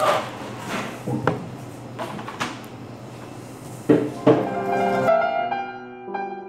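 Café room noise with a few sharp knocks and clatters, the loudest two close together about four seconds in; then gentle piano music begins about five seconds in.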